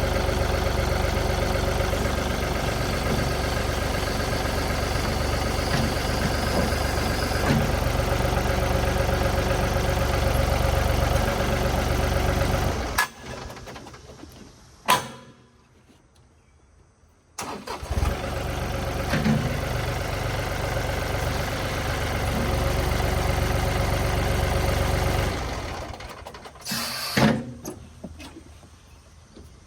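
John Deere 2032R compact tractor's diesel engine running steadily while the front-end loader is worked to set it back onto its mounts. The engine sound cuts off abruptly about 13 seconds in, returns suddenly about 4 seconds later, then dies away with a couple of knocks near the end.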